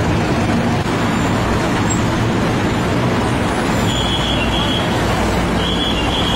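Steady road traffic, heavy vehicles such as trucks and buses running past, with a constant low engine hum. A short high-pitched tone sounds twice in the second half.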